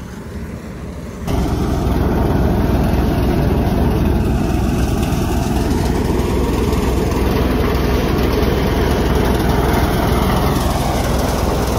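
Threshing machine running steadily as pearl millet is fed into it. The loud, dense machine noise cuts in abruptly about a second in.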